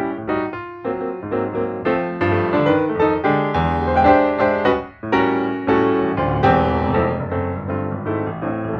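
Background piano music: a steady run of notes with bass, dropping briefly about five seconds in before carrying on.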